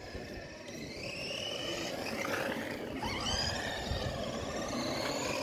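Electric motor and gearbox whine of an HBX 16889 1/16 RC monster truck, gliding up and down in pitch as it speeds up and slows, over the rush of its tyres on stone paving; it gets louder over the first second or two.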